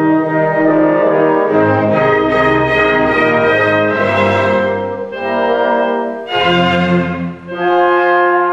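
Orchestral classical music with brass, holding sustained chords that change every second or two, with a short dip in loudness near the end.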